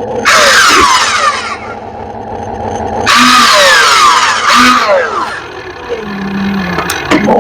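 Radio-controlled excavator working, its motor and hydraulics whining loudly in two bursts of one to two seconds each, with falling tones inside each burst and quieter running between them.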